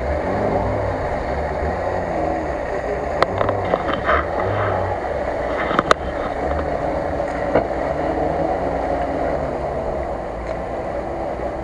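Lada Niva 4x4 engine running steadily while the car sits stuck nose-down in a muddy, water-filled ditch, with a few sharp knocks near the middle.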